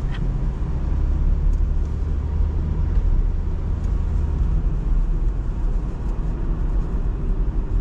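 Steady low rumble of engine and road noise heard inside the cabin of a Honda Fit hatchback driving along a town street.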